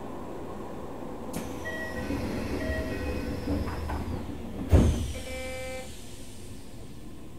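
Passenger sliding doors of a Keisei 3000-series train car working: a hiss, short chime tones, then a loud thump about five seconds in as the doors reach their stop, followed by a brief chord of beeps.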